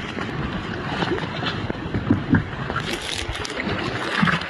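Field sound aboard an inflatable rescue boat on floodwater: wind buffeting the microphone, with a couple of knocks about halfway through.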